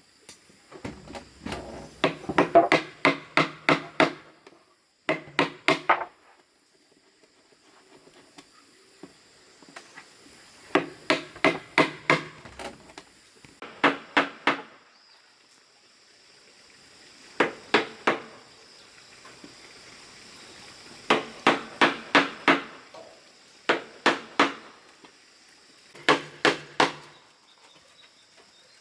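Hammer driving nails during construction of a wooden pigeon house. The blows come in bursts of three to eight quick strikes, with pauses of a second or more between bursts.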